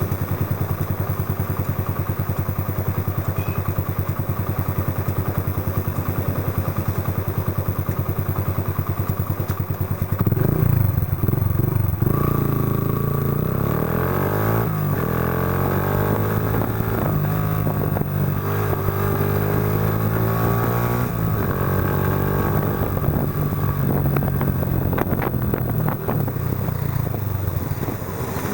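Yamaha Factor 125's single-cylinder four-stroke engine running through a Roncar aluminium aftermarket exhaust. It runs steadily for about the first ten seconds, then its pitch climbs and drops several times as the bike accelerates.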